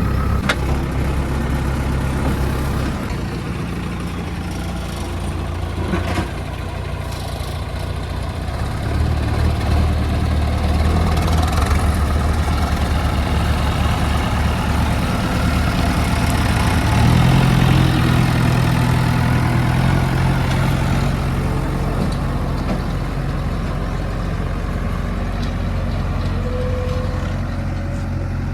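JCB 3DX backhoe loader's diesel engine running, its speed rising and falling several times.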